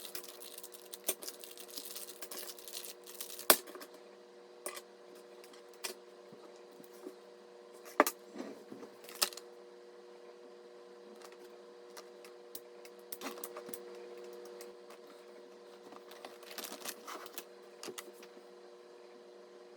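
Scattered clicks, taps and light knocks of computer parts and packaging being handled, with a sharp knock about three and a half seconds in and another about eight seconds in, and brief rustling here and there, over a steady low hum.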